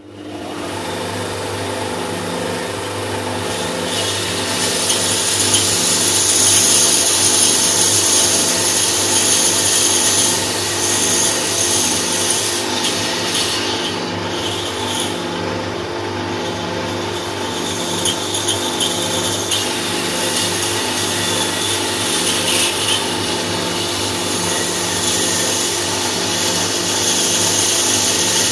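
Pegas fine-cut bandsaw running with a thin blade and cutting curved jigsaw-puzzle lines through a squared block of wood. A steady motor hum sits under the hiss of the blade in the wood. The sound starts abruptly and grows louder over the first few seconds.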